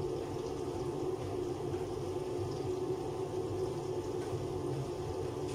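A steady machine hum with a few fixed pitches that does not change at all, like a motor or fan running.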